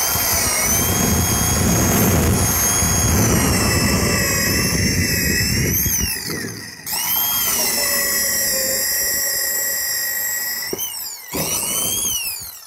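Heavy-duty corded right-angle drill running at its high 1200 RPM setting, a worm (auger) bit boring through a wooden 2x4 stud. The motor whines loudly, with a low crunching of the bit chewing wood for the first six seconds. It stops briefly about six seconds in and again near eleven seconds, spinning back up with a rising whine each time.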